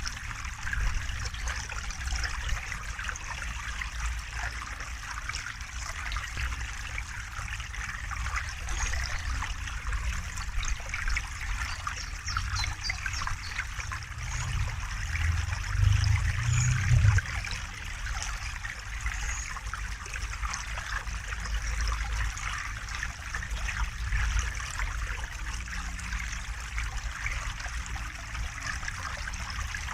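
River water flowing and trickling steadily. A low rumble swells briefly about halfway through.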